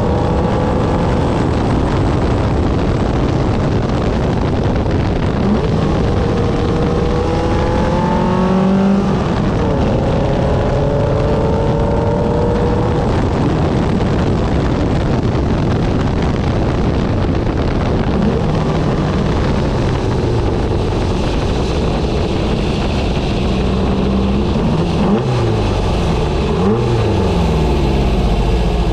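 The 1970 Porsche 914-4 race car's built 1.7-litre air-cooled flat-four, with straight-piped headers, driven hard. It revs up and shifts up several times in the first half, against heavy wind and road noise in the open cockpit. Near the end there are lower rises and falls in engine pitch as the car slows.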